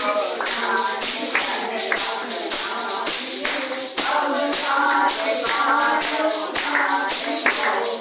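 A devotional song: voices singing over jingling hand percussion that strikes a steady beat, about two strokes a second.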